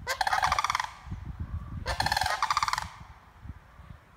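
Sandhill cranes calling: two loud, rolling, rattling calls about a second apart, each a little under a second long.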